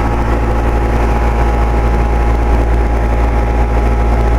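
2007 Carrier 2.5-ton straight-cool condensing unit running: its Copeland scroll compressor and condenser fan give a loud, steady hum with several even, unchanging tones.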